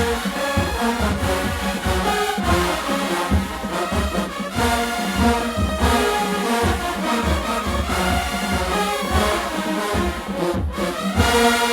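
Marching band playing: brass horns carry the tune over a steady beat of bass drums. Near the end the band hits a loud held chord.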